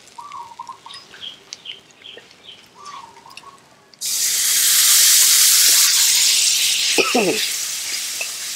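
Curry paste frying in oil in a wok with a spatula scraping and clicking. About four seconds in, coconut milk poured into the hot wok sets off a sudden loud sizzle that slowly dies away.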